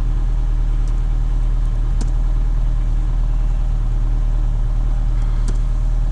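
Daewoo Sens car engine idling steadily, with a few faint clicks.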